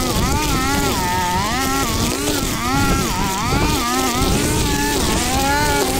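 Petrol strimmer engine running hard while cutting weeds along a hedge, its pitch rising and falling about once a second as the throttle is worked and the head meets the growth.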